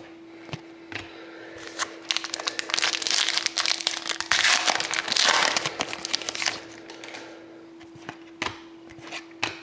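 Glossy hockey trading cards being handled and shuffled by hand, with a few seconds of dense crinkling and crackling in the middle and a few single clicks around it. A faint steady hum lies underneath.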